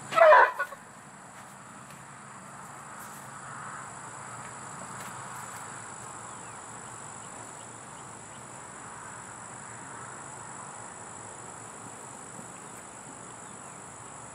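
A horse gives one short, loud squeal, falling in pitch, as unfamiliar horses meet nose to nose, a typical sound of horses sizing each other up on first meeting. After it comes a steady high insect buzz.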